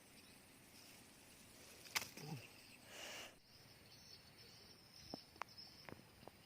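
Faint outdoor ambience of insects chirring in a steady high band. A sharp click comes about two seconds in, then a brief rustle, with a few faint ticks later on.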